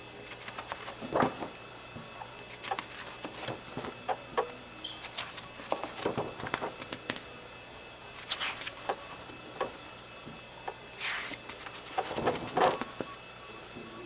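Stamp album pages in a three-ring binder being handled and turned: paper and plastic-mount rustles with soft taps, in scattered bursts, the biggest near the end.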